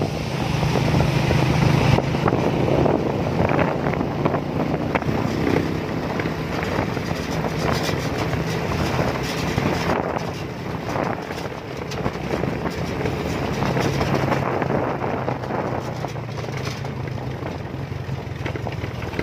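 Motorcycle engine running while riding along a road, with wind buffeting the microphone. The engine's steady hum is strongest in the first few seconds, eases off through the middle and comes up again near the end.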